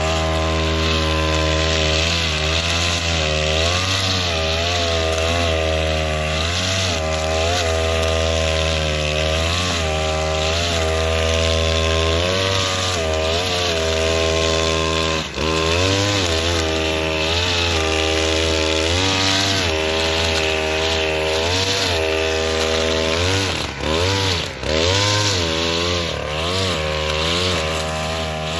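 Oleo-Mac BC 530 T two-stroke brushcutter running at high revs while cutting dry grass, its engine pitch sagging and recovering again and again as the cutting head meets the grass. The throttle briefly drops off about halfway through and twice more near the end.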